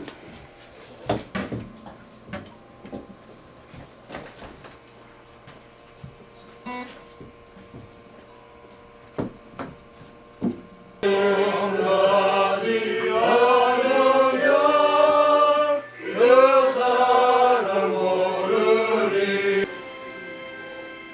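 Scattered knocks and clicks for about ten seconds, then music starts abruptly: a loud melody over accompaniment for about nine seconds, dropping to a softer held chord near the end. It is the start of hymn music.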